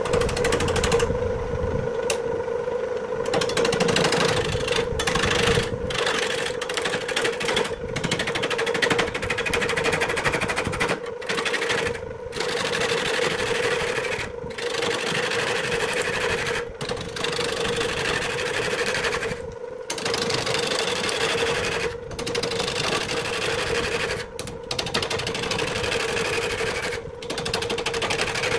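Wood lathe spinning a rough wooden blank while a hand-held gouge cuts into it: a steady hum under the hiss of the cut, broken by brief pauses every two to three seconds.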